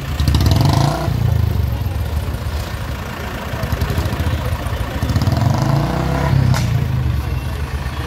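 Pickup truck engines running at low speed close by as the trucks crawl forward, with a rise in engine noise about half a second in. One sharp clack about two-thirds of the way through.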